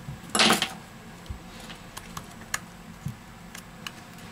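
Small, irregular clicks and taps from handling a smartphone and a precision screwdriver while taking out its screws, with one brief louder scrape about half a second in.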